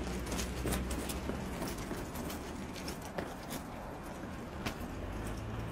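Footsteps on a pavement, irregular taps and scuffs a few times a second, over a steady low hum.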